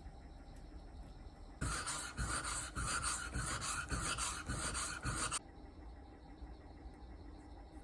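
Hand rubbing or scrubbing on the axe head during its rust polishing, in back-and-forth strokes about two a second. It starts about a second and a half in and stops abruptly about four seconds later.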